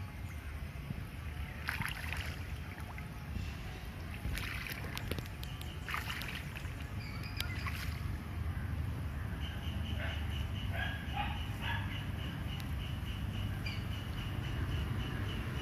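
Open-air field ambience: a steady low rumble, with short high calls here and there and, from about the middle on, a run of quick, evenly repeated chirps.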